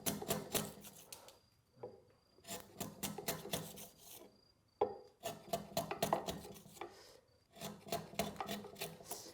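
Hand tool paring wood from a joint face in quick scraping strokes, in four short bouts with brief pauses between them: trimming down the middle of the face so it is not high in the centre and the joint will fit.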